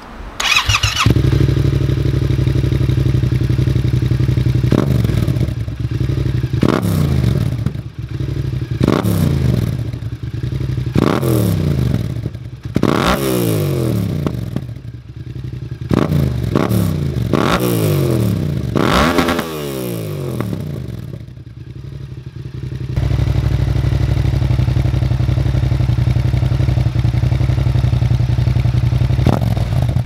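Yamaha Tracer 7's 689 cc parallel-twin breathing through a MIVV Speed Edge full exhaust: it starts about a second in and settles to a steady idle. From about five to twenty seconds in, a string of quick throttle blips each rises sharply and falls back, before it returns to idle.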